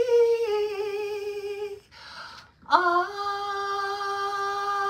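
A woman singing unaccompanied, holding long wordless notes. About two seconds in she breaks off and takes a breath, then slides up into a long steady note.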